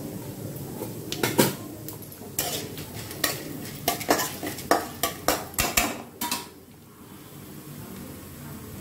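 A spatula scraping and clinking against a metal kadai as a tempering of mustard seeds, dals and cumin is stirred in hot oil, a quick run of strokes that stops about two-thirds of the way in. The oil sizzles quietly underneath.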